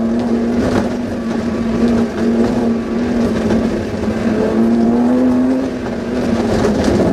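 Suzuki Vitara off-road rally car's engine running hard under load, heard from inside the cabin, its note holding fairly steady with small rises and dips. A few sharp knocks and rattles come through as the car is driven over the course.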